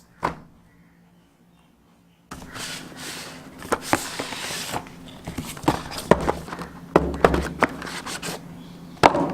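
Packaging being handled and opened: rustling and scraping, with many sharp clicks and knocks. A single click comes just at the start, then it is nearly quiet until the handling begins about two seconds in.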